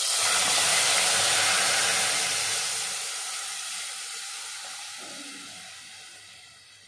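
Milk poured into hot ghee and oil in a pressure cooker: a loud sizzle that starts at once and dies down steadily over several seconds as the milk cools the fat.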